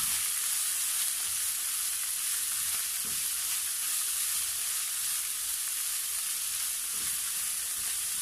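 Chopped cheera (amaranth) leaves sizzling in a nonstick frying pan while being stirred with a spatula: a steady frying hiss with a few faint soft scrapes of the spatula.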